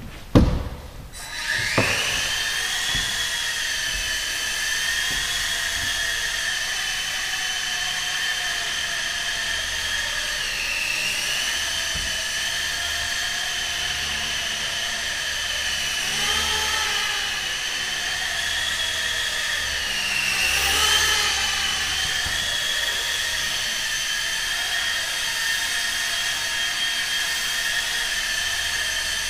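A small high-speed motor whining steadily at a high pitch, with a slight waver now and then. It rises to speed about a second and a half in, after a few knocks at the start.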